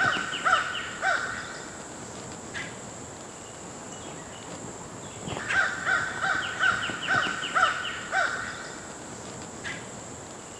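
A bird calling in a quick series of harsh, evenly repeated notes, about two or three a second, in two bouts: one that trails off about a second in, and another from about five to eight seconds in.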